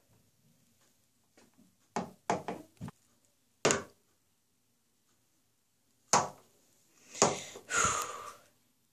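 A few short knocks and taps, a quick cluster about two seconds in and another near four seconds, then more knocks and a brief rustle near the end, in a quiet small room.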